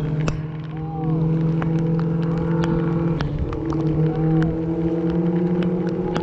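A steady motor hum whose pitch shifts slightly about halfway through, with scattered sharp clicks and knocks over it.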